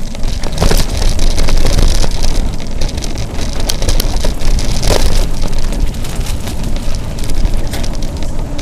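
Mountain bike riding fast over dirt singletrack: wind rumbling on the microphone over the crackle of tyres on the trail, with a few sharp clatters from bumps.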